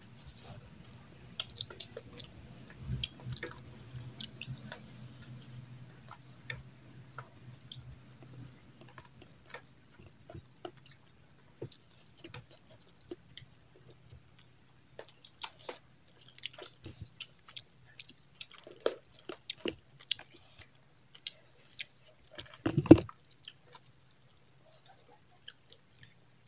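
Two people chewing rice and chicken-and-pumpkin curry eaten by hand, with many short wet mouth clicks and lip smacks. A single loud thump comes about three-quarters of the way in.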